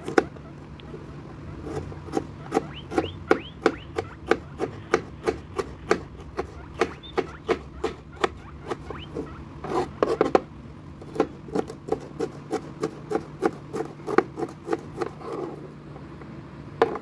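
A kitchen knife chopping a green bell pepper into strips on a plastic chopping board: sharp, even taps of the blade striking the board, about three a second, with brief pauses now and then.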